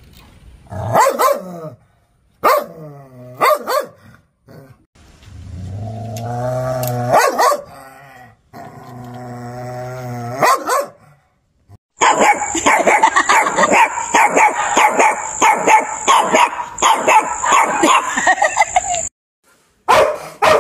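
Angry dog barking and growling: a few single barks, then two long, low growls, then about seven seconds of rapid barking with a steady high-pitched tone running through it, then more barks near the end.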